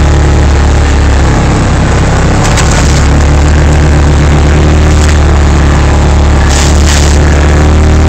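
Yamaha Rhino side-by-side's single-cylinder engine droning steadily under load while driving through deep snow. Short hissing bursts come about two and a half seconds in, at five seconds, and again near seven seconds.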